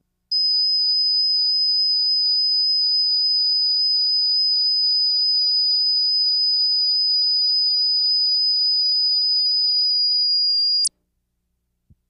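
Broadcast colour-bar reference tone: one steady, high-pitched sine tone that starts just after the outset, holds unchanged for about ten seconds and cuts off suddenly.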